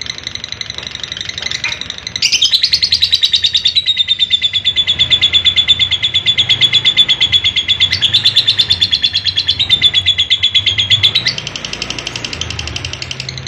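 Lovebird's long 'ngekek' call: an unbroken, rapid chattering trill, loudest through a long stretch in the middle and easing off about eleven seconds in.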